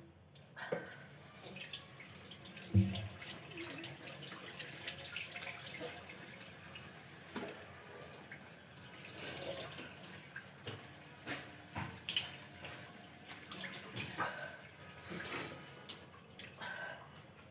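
Water splashing and dripping in a wash basin: faint, irregular small splashes throughout, with one thump about three seconds in.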